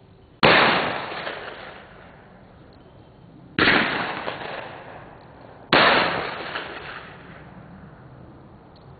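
Three shotgun shots: one about half a second in, a second about three seconds later, and a third about two seconds after that, each fading out over a second or more.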